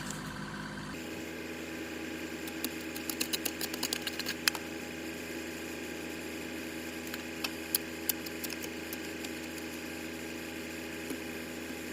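An engine running steadily at an even speed, with scattered sharp clicks and knocks over it, clustered a few seconds in and again near the middle.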